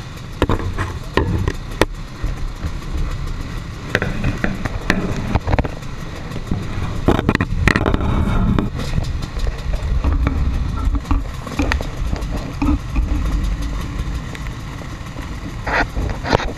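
Many dirt bike engines running together in a crowded start grid, heard as a dense, muffled low rumble. Crowd voices and a few sharp knocks come through on top.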